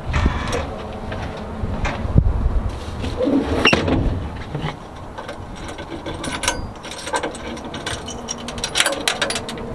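Metal fittings on a fire truck's body being handled: a hinged panel and a fold-down seat with its retaining chain clicking and knocking, with several short squeaks.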